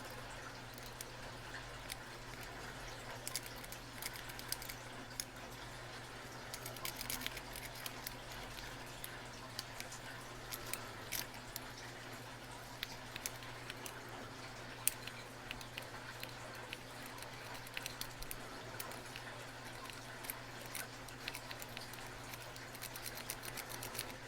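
Small irregular metallic clicks and scrapes of a lock pick working the pins of a brass Master Lock 140 padlock, over a faint steady hum.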